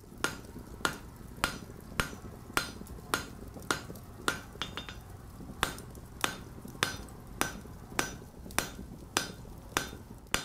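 Steady, evenly paced hammer blows on steel at an anvil, about one every 0.6 seconds. Each blow gives a short metallic ring, over a low steady hum.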